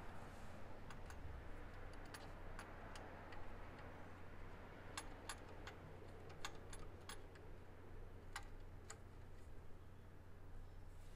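Ratchet wrench clicking as the oil drain plug is tightened back into the oil pan: a dozen or so sharp, faint clicks at irregular spacing, over a faint steady low hum.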